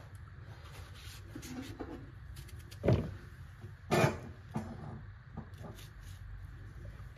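Kitchen knife cutting and scraping a peeled bottle gourd over a plastic bowl, with faint small clicks and two short knocks, one about three seconds in and a louder one about a second later.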